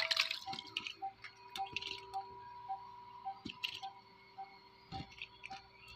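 Background music track built on an even ticking pulse, short blips a little under two a second over steady held notes, with a few faint clicks scattered through it.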